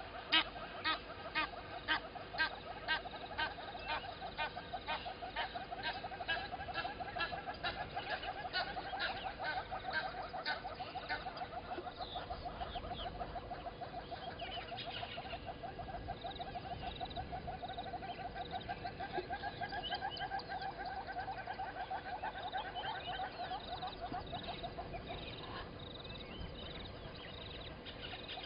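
Wild birds calling at a waterhole at dawn: a series of loud, evenly spaced calls fading away over the first few seconds, over a long, rapid pulsing call that stops about 25 seconds in, then short high chirps repeating near the end.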